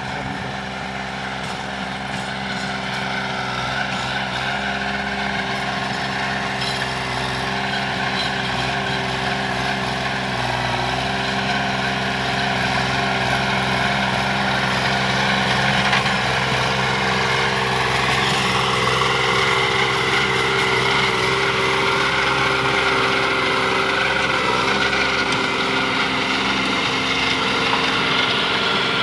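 Kubota B2420 compact tractor's diesel engine running steadily while it drives a PTO rotary tiller through banana plants. The engine gets gradually louder over the first half, and its note shifts a little later on.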